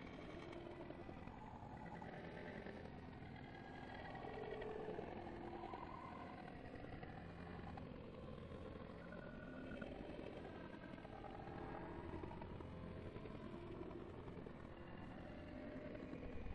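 Faint steady background rumble of distant road traffic, with a few brief faint tones on top.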